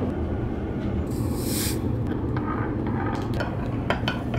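A steady low room hum, with a short hiss about a second in. Near the end come light ticks as sugar starts pouring from a paper sachet into a cup of coffee.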